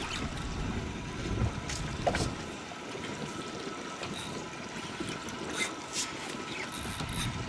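Sea water sloshing and trickling around a boat's hull, with wind noise and a few faint, irregular clicks.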